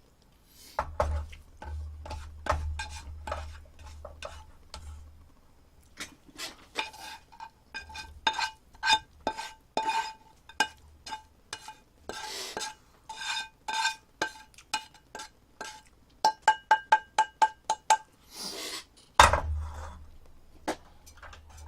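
A metal utensil clinking and scraping against a dish while eggs are stirred and mashed. Each strike rings with a clear tone, and there is a fast run of taps about two-thirds of the way through. A few dull knocks come at the start and near the end.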